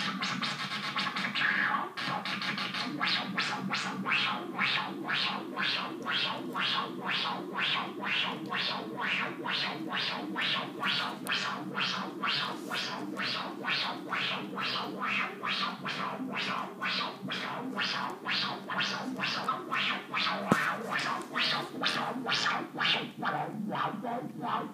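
Mogol synthesizer driven by a jerk-equation chaos circuit, with the chaotic signal sweeping its pitch and filter cutoff. About two seconds in, the sound turns from a steadier tone into a stream of filter-opening pulses, roughly two a second.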